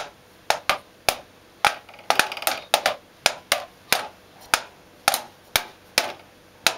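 Wooden drumsticks striking the rubber pads of a video-game drum controller: sharp, uneven taps about two to three a second, with a quick flurry of hits about two seconds in.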